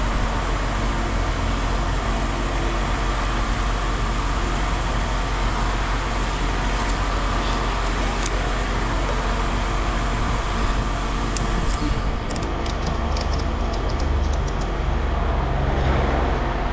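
Vehicle engine running steadily. A quick run of light clicks or rattles comes about twelve to fifteen seconds in.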